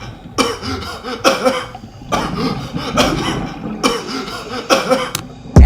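A person coughing over and over, short raspy voiced coughs coming in pairs or singly about once a second.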